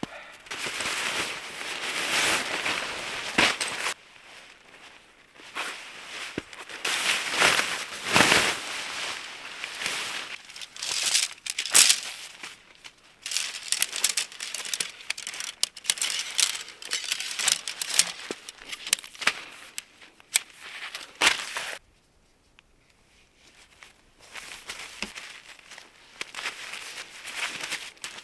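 Footsteps crunching through snow, an uneven run of crunches that stop for a couple of seconds about three-quarters of the way through and then start again.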